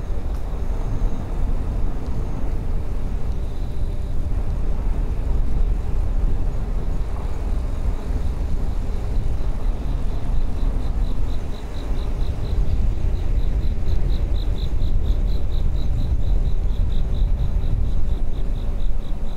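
Wind buffeting the microphone and tyre rumble on a bicycle ride along a road, a steady low rumble. From about halfway in, a faint high pulsing trill, several pulses a second, runs over it.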